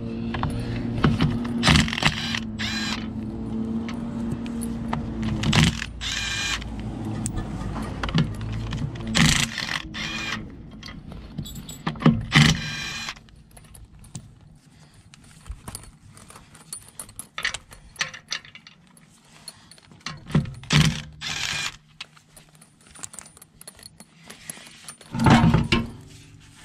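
Impact gun undoing wheel bolts: a steady motor hum for the first several seconds, then several short loud bursts of rattling with metallic clinks from the loosened bolts.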